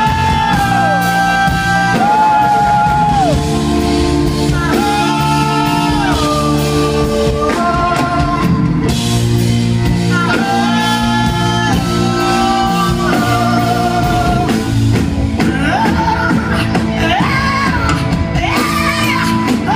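Live rock band playing loudly in a hall: electric guitar and bass under a lead melody of held notes that slide into and out of pitch, heard from among the audience.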